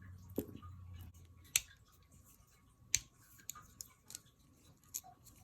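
Scattered small clicks and taps of packaging and small parts being handled, about seven sharp clicks a second or so apart, with a faint low hum in the first second or so.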